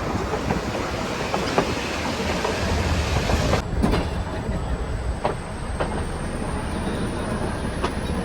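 Nilgiri Mountain Railway metre-gauge train running along the track: a steady rumble and rattle with irregular sharp clicks of the wheels over rail joints.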